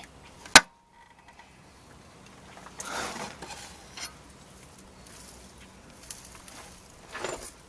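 A single sharp metallic clank about half a second in as the starter motor is pried against, then faint scraping and shuffling from work under the truck.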